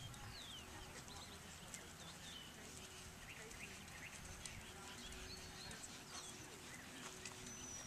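Faint open-air ambience: short high chirps of birds scattered throughout over a low rumble, with the soft hoofbeats of a horse walking on sand arena footing.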